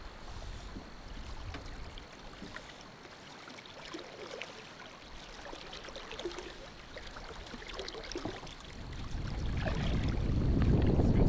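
Small water sounds: light lapping and splashing at the rocky shoreline. Wind on the microphone rises to a low rumble over the last couple of seconds.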